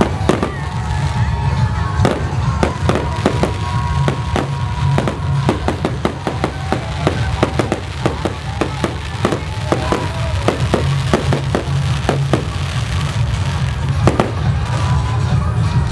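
Aerial fireworks shells bursting in a rapid string of sharp bangs and crackles, thinning out near the end, with music playing underneath.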